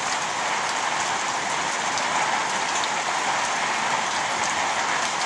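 Heavy rain mixed with hail pelting a garden: a dense, steady hiss of falling drops and stones.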